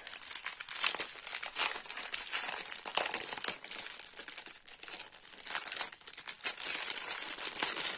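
Clear plastic packaging crinkling and rustling continuously as hands squeeze and work a bag of small diamond painting drill packets open.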